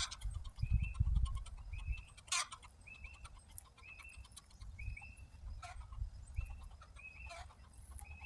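An animal's short call, one note repeated steadily about once a second. A few brief rustles and crackles come from weeds being pulled from the bed.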